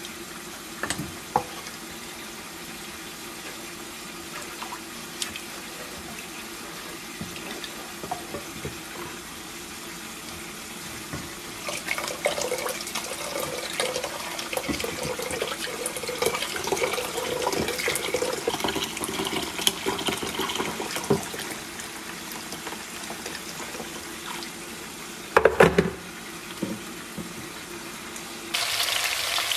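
Water pouring from an electric kettle into a saucepan of maize flour, splashing for about nine seconds, after a few light taps of a scoop against the pan. A single loud knock follows, and frying starts to sizzle just before the end.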